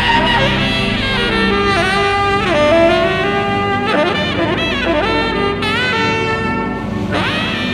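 Tenor saxophone playing a held, expressive solo line over a steady low synth backing. Several notes scoop up into pitch and others bend down at their ends.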